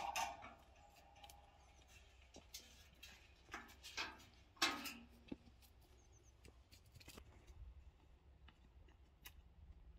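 Faint footsteps on a dirt path and light knocks from a carried metal bucket, with a few louder knocks about four to five seconds in.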